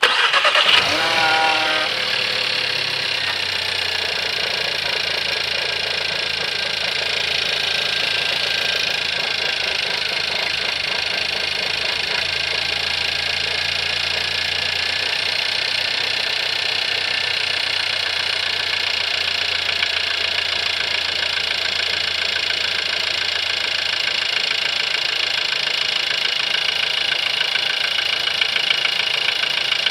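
VW 1.4 TSI CZDA four-cylinder turbo petrol engine running at idle with a steady knocking rattle, which the owner has heard since changing to 5W-40 oil at 6,000 km. Near the start the revs rise briefly, then settle to an even idle.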